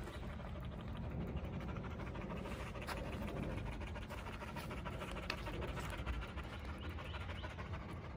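Giant schnauzer panting rapidly and steadily with its mouth open, the quick, even breathing of a dog cooling down after exertion.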